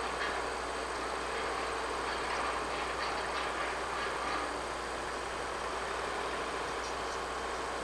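Rolling noise of a train passing on the railroad tracks: a steady rumble and rattle of rail cars, with faint clicks in the first few seconds.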